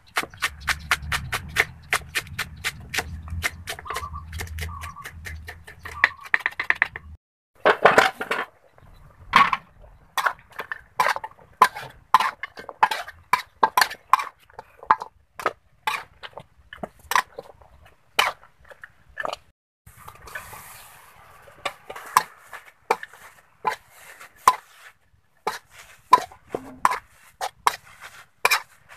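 A knife chopping quickly on a wooden chopping block, about four cuts a second, for the first six seconds or so. It is followed by a metal ladle clanking and scraping irregularly against a wok during stir-frying.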